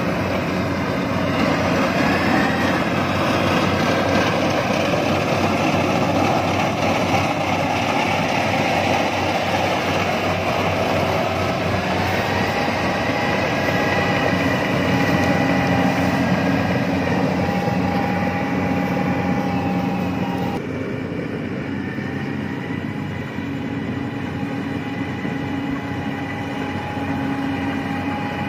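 Rice combine harvester running steadily as it cuts and threshes paddy: a constant engine drone with a whining tone over it. The sound changes abruptly about two-thirds of the way through, becoming somewhat quieter and less hissy.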